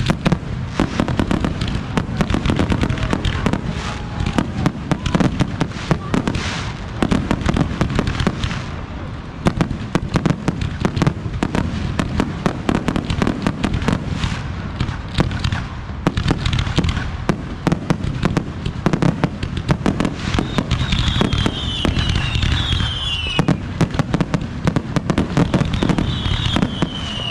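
Fireworks finale: a continuous rapid barrage of bursts and crackling pops with no pauses. High whistles falling in pitch come twice near the end.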